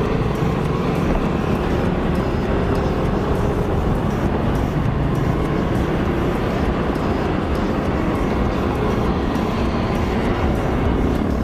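Riding on a Yamaha Mio Soul i 125 scooter: a steady rush of wind over the microphone, with the scooter's single-cylinder engine and road noise running beneath it.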